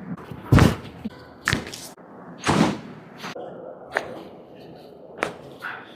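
A series of about seven sharp thumps and cracks from a chiropractic manual adjustment on a patient's body. The two heaviest thumps land about half a second and two and a half seconds in; lighter, sharper cracks fall between and after them.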